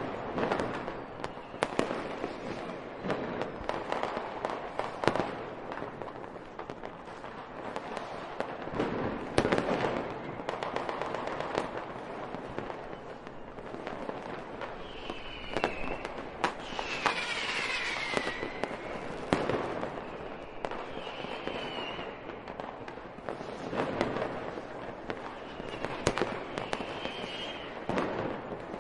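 Fireworks going off: a continuous run of sharp bangs and crackling, with several short whistles gliding in pitch in the second half.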